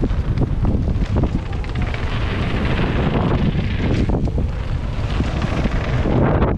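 Wind buffeting a helmet-mounted camera's microphone on a fast mountain-bike descent over a dirt trail, a loud steady rumble with scattered knocks and rattles from the bike and tyres over bumps.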